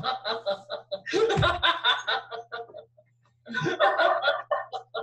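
Two people laughing hard in runs of quick, short pulses, breaking off briefly about three seconds in and then starting again.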